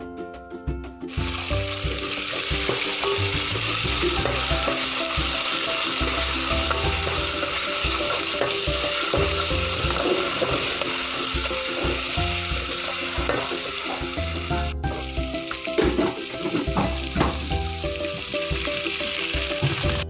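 Chopped onion and tomato sizzling in hot oil in a pan, starting about a second in and stirred now and then, with background music playing under it.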